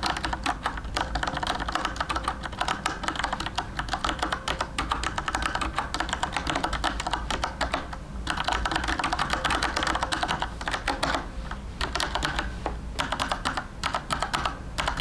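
Typing on a Penna retro mechanical keyboard with brown (tactile, non-clicky) switches and round chrome keycaps: a fast, continuous run of keystrokes with a few short pauses. The switches sound softer than clicky blue switches.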